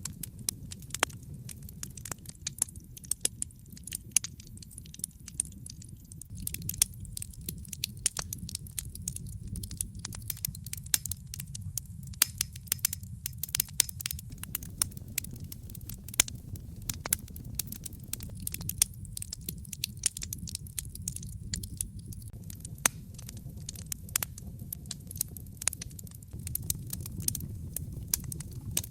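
Wood fire crackling in a fireplace: many sharp, irregular pops and snaps over a steady low rumble of flames.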